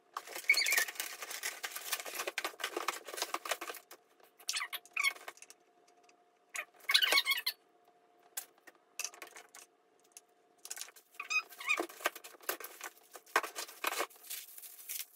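Plastic packaging rustling and crinkling, with small clicks, as the parts of a ring light kit are unwrapped and handled, in irregular spells with short pauses between them. A faint steady hum runs underneath.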